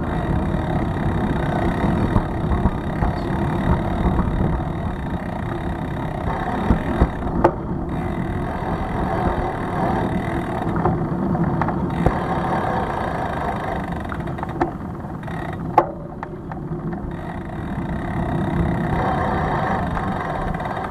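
Steady low rumble of a bicycle being ridden over city pavement, picked up by a camera mounted on the bike, with a few sharp knocks along the way.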